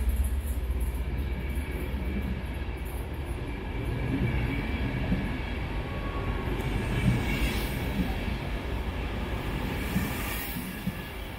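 Unpowered Mark IV passenger coaches rolling past as they are hauled through, with a steady wheel-on-rail rumble and occasional short clunks, easing off slightly near the end.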